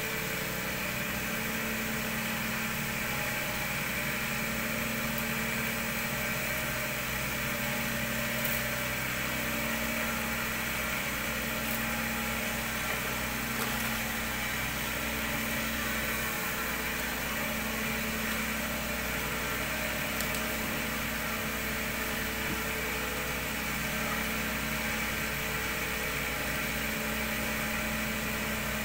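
Gas-heated cotton candy machine with a jumbo cast-aluminium burner running steadily, its spinning head humming evenly as it spins sugar into floss.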